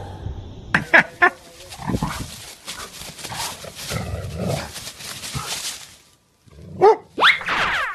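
A dog barking a few times, with other short sharp animal calls between.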